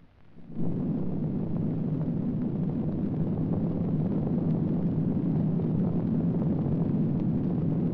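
Low, steady rumble, a sound effect for a nuclear explosion and its mushroom cloud, starting abruptly about half a second in.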